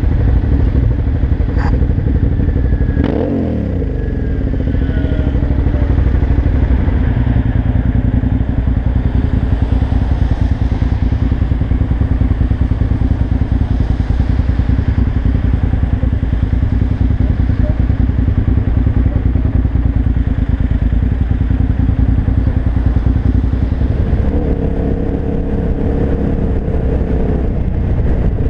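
Suzuki SV650's 645 cc 90-degree V-twin with an aftermarket Laser exhaust running, at idle in traffic and under way, with wind noise. About three seconds in a sharp knock is followed by an engine note falling in pitch, and near the end the engine note rises and falls as it revs.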